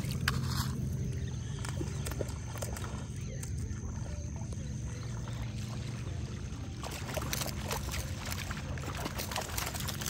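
A hooked fish thrashing and splashing at the water's surface, with a run of sharp splashes in the second half as it is scooped into a landing net, over a steady low rumble.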